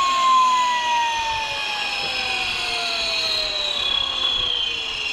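Rover 1S60 gas turbine spooling down after shutdown, its whine made of several tones that all fall steadily in pitch.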